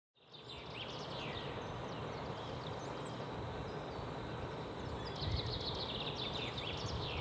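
Backpacking canister gas stove burning steadily under a steaming pot, starting about a third of a second in, with birds chirping over it, more often in the second half.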